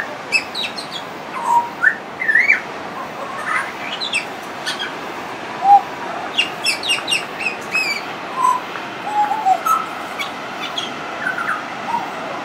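Pied butcherbird singing: an irregular run of clear whistled notes, some sliding up or down, mixed with clusters of short, high, sharp chirps.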